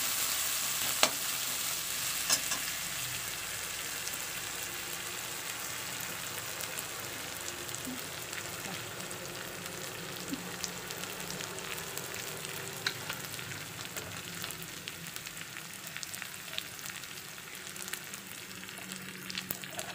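Sliced onions and chillies sizzling in hot oil in a metal kadai; the sizzle slowly dies down. A few sharp clicks of a metal spatula against the pan are heard.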